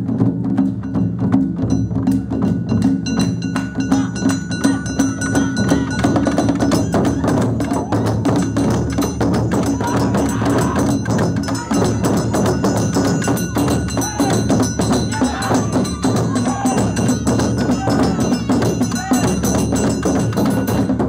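Awa odori narimono ensemble playing a fast, continuous rhythm. Shoulder-slung taiko and small shime-daiko drums are struck densely, with the bright, steady ringing of a kane hand gong over them.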